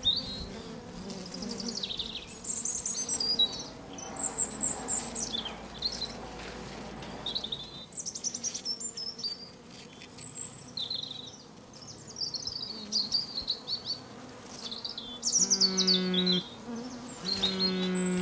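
Birds chirping and twittering throughout. About three seconds from the end, a mobile phone starts buzzing with a low, steady tone in pulses about a second long, twice, as an incoming call.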